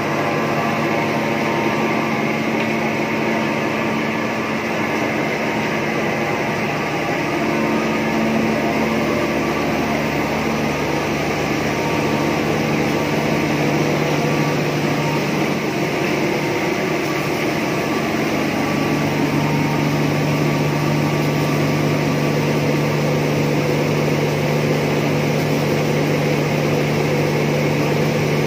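Single-stage rice mill running steadily under electric-motor drive: a continuous machine hum with a dense rushing noise from the huller, belts and fans.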